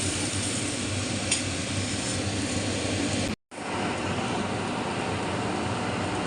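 Steady kitchen hum with a hiss over it, the sound of a pancake cooking on a hot tawa with a motor or fan running. It cuts out completely for a moment about three and a half seconds in.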